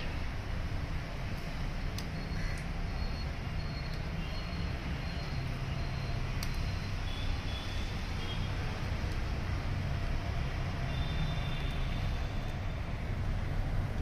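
Steady low rumble of street traffic, with a few faint short high tones now and then.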